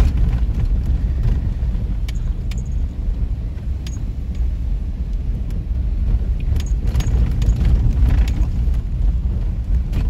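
Inside a car's cabin: a steady low rumble from the tyres and suspension jolting over a rutted, frozen snow-packed road, with scattered rattles and knocks as the car shakes.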